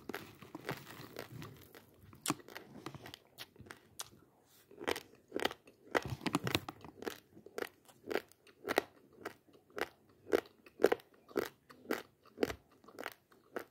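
Dry, uncooked basmati rice grains being crunched between the teeth, with sharp crunches at about two a second. Near the start there is a dry rustle of a spoon scooping into the loose grains.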